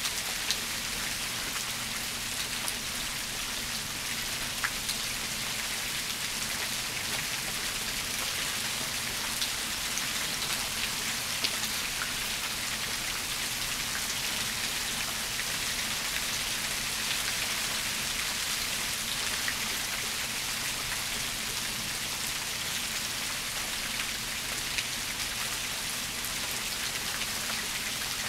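Steady rain falling: an even hiss, with now and then a single drop landing as a sharp tick.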